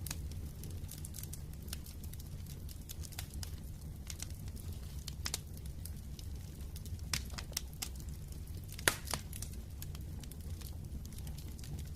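Wood fire in a fireplace crackling, with irregular sharp pops over a steady low rumble of the flames; one louder pop about nine seconds in.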